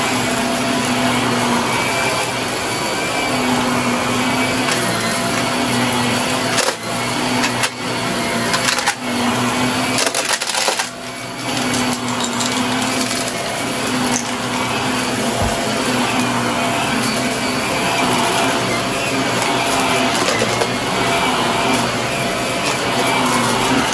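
Upright vacuum cleaner running steadily over carpet, with crunching and crackling as debris is sucked up, and a few sharp clicks about seven to nine seconds in.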